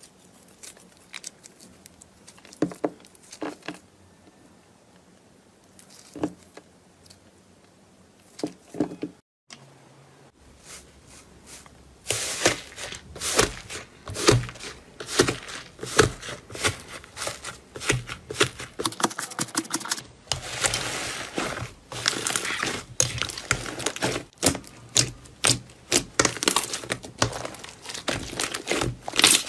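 Slime being squeezed and worked by hand, giving sticky crackling and popping clicks: sparse at first, then dense and continuous from about a third of the way in.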